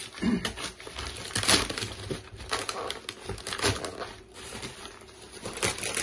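Packaging being handled: plastic bubble wrap crinkling and a cardboard box rustling and scraping, in irregular louder bursts.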